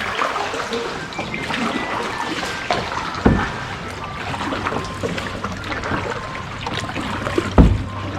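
Sea water trickling and sloshing around a kayak as it is paddled, with two short low thumps, one about three seconds in and one near the end.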